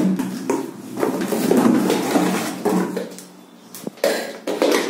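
Handling and unpacking of a new vacuum cleaner and its parts: irregular rustling with scattered knocks and clatters, and a short lull a little past halfway.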